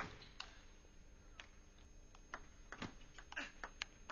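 Table tennis rally: the celluloid ball clicking sharply off the bats and the table, about two hits a second at an uneven pace.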